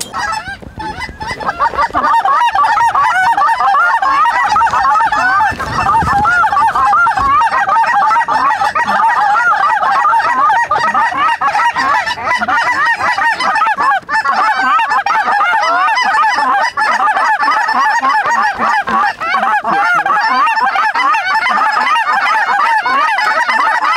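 A large flock of lesser Canada geese calling overhead: a dense, continuous din of many overlapping high-pitched honks and clucks that builds up over the first two seconds and then holds.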